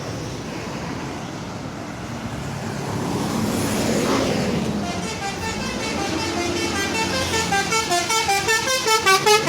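Telolet basuri musical horn on a bus playing a quick tune of short stepped notes, growing louder near the end. A vehicle passes with a swelling and fading rush about four seconds in.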